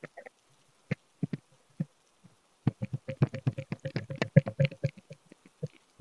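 Hollow bamboo massage tubes knocking: a few separate taps, then from about halfway a rapid run of hollow knocks with a slight ringing note.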